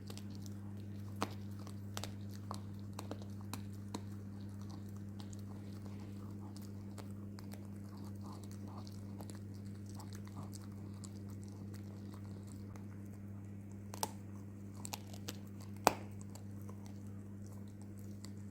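Miniature schnauzer chewing and crunching food: irregular sharp crunches, the loudest two about 14 and 16 seconds in, over a steady low electrical hum.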